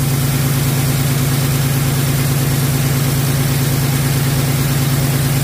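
PACCAR MX13 inline-six diesel engine idling steadily, a constant low hum with an even, rapid pulse underneath.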